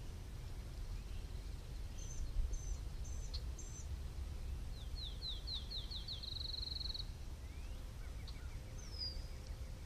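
Wild songbirds calling over a steady low rumble outdoors. First come four short high calls, then a song of quickening slurred notes that runs into a trill, and one more short call near the end.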